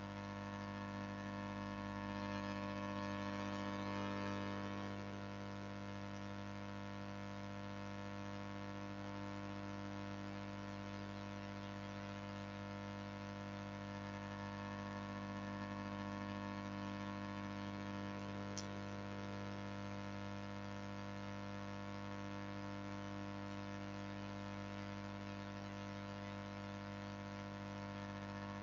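Faint steady electrical hum and buzz, a low drone with a ladder of higher overtones that never changes, with one small click about two-thirds of the way through.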